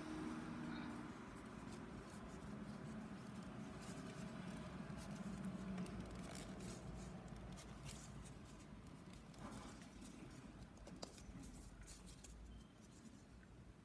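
Faint rubbing and scraping of thick craft foam pieces being pushed onto a foam spine by hand, with scattered small clicks.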